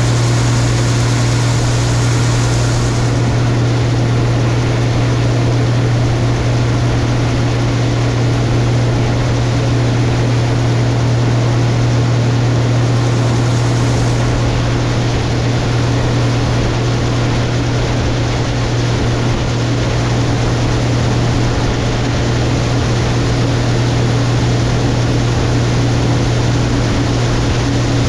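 Combine harvester running steadily, its engine drone and rushing machinery noise unchanged throughout while it unloads corn from the grain tank through the unloading auger.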